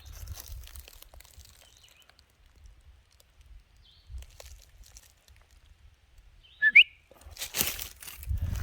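A single short, sharp rising bird chirp about two-thirds of the way in, followed near the end by a stretch of rustling, scuffing noise.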